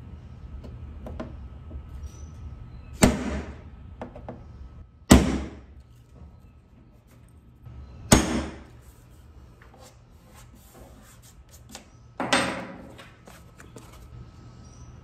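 Staple gun firing short brad nails through a thin wooden strip into a wooden cabinet side: four sharp clacks a few seconds apart, each with a short fading ring.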